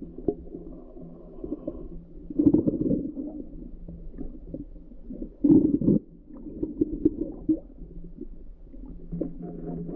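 Muffled underwater rumble of moving water heard through a submerged camera housing, with two louder surges about two and a half and five and a half seconds in.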